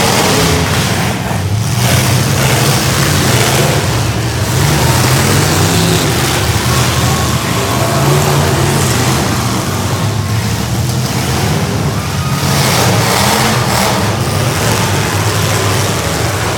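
Several demolition derby cars' V8 engines running and revving, the pitch wavering up and down, loud.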